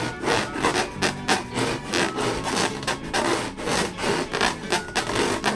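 Hands rubbing and squeezing rubber balloons in quick, repeated rubbing strokes, about three a second.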